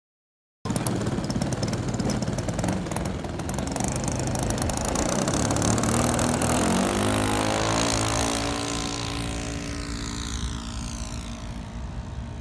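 Engine and propeller of a large RC model Decathlon plane running at high throttle through its takeoff, starting abruptly about half a second in. Over the last few seconds its pitch falls and it grows quieter as the plane climbs away.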